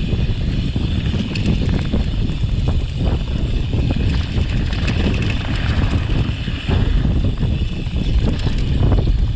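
Mountain bike riding downhill over rough trail: wind buffeting the microphone, with a steady clatter of knocks and rattles from the tyres and bike over stones.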